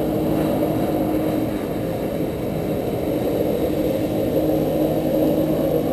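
Jet-ski engine running steadily to drive a flyboard's water jet, with the churning and spray of water.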